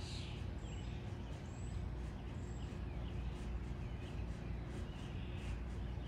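Scattered faint bird chirps and calls over a steady low outdoor rumble with a faint hum.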